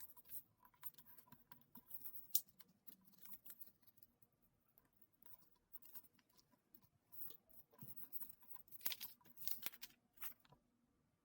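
Paper being folded and creased by hand into a paper airplane: faint crinkling and scratchy rustles, with a cluster of sharper crackles near the end.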